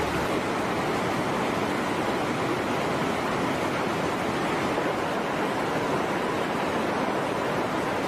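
Fast water of a mountain stream rushing and cascading over rocks, a steady, even rush of water noise.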